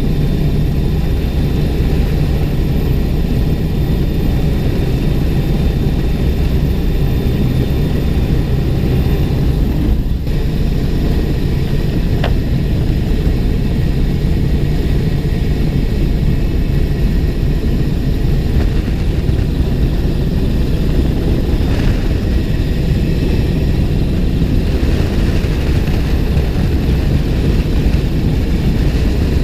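A CH-149 Cormorant three-engine search-and-rescue helicopter hovering, heard up close from on board. Its rotors and turbine engines make a loud, steady drone with deep tones.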